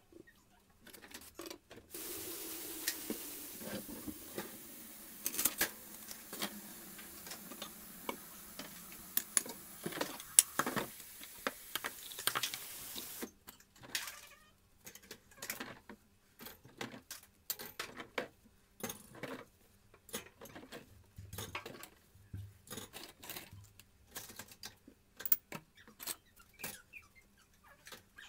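Dishwashing at a kitchen sink: the tap runs for about ten seconds while a pot and dishes clink. Once the water stops, a rapid string of clatters and clinks of dishes and cutlery follows.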